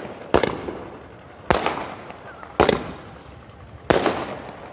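A 60-shot sky shot firework cake firing its shells one after another: four sharp bangs about a second apart, each with a fading tail.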